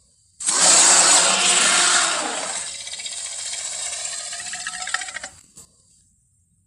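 Tyrannosaurus rex roar sound effect: it starts abruptly, is loudest in its first two seconds, then trails into a weaker, pulsing growl that cuts off suddenly about five seconds in.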